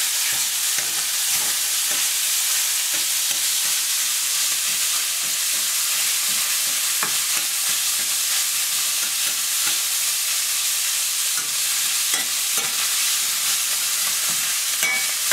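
Ground beef sizzling as it browns in a hot stainless steel frying pan, with a metal spatula scraping and stirring through it, making small scrapes and clicks over the steady hiss.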